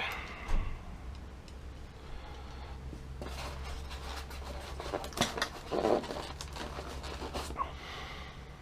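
Scattered light clicks and knocks of an airsoft rifle's parts and screws being handled and checked, over a steady low hum.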